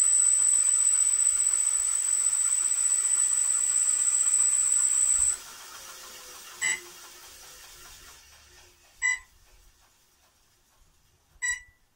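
Straddle 2 combat robot's weapon spinning at speed, a loud steady whirr with a high steady whistle, cut off suddenly about five seconds in; the weapon then winds down, fading away. Short electronic beeps sound about every two and a half seconds during the wind-down.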